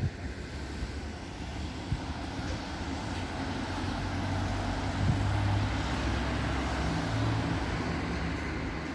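Road vehicle passing outside: engine hum and tyre noise build to a peak about five seconds in, then fade.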